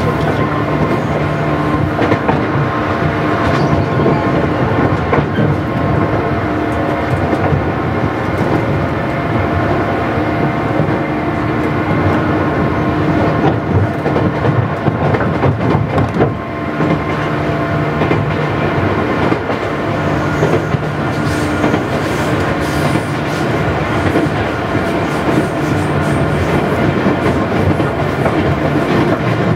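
JR West 117 series 100-subseries electric train running, heard from inside the car: a steady rumble with the traction motors' hum and several steady tones, and wheels clicking over rail joints.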